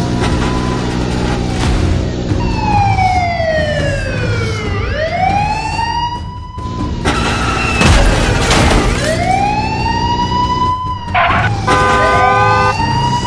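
Siren sound effect wailing in long sweeps, falling and then rising and levelling off again several times, over a steady low drone. About eight seconds in there is a louder noisy rush.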